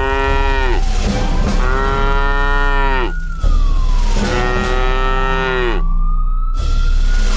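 Cow mooing: three long calls in a row, each dropping in pitch as it ends. Between the calls a single thin tone slowly rises and falls.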